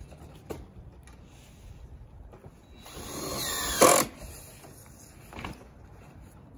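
Cordless drill driving a screw through a metal edge strip at the roof edge. The motor whine builds for about a second, about three seconds in, and ends in one sharp crack.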